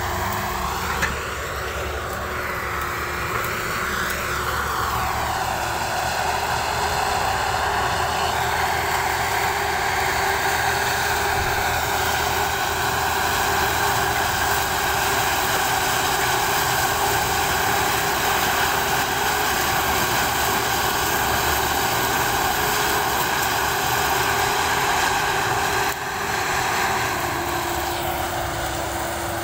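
Sugarcane harvester running steadily close by as it works through the cane: a loud, even engine drone with a whine from its machinery, dipping briefly near the end.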